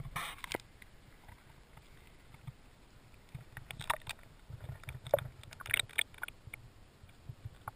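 Action camera in its waterproof housing going under water: the open-air noise drops away about half a second in. After that, quiet underwater sound with scattered small clicks and low knocks.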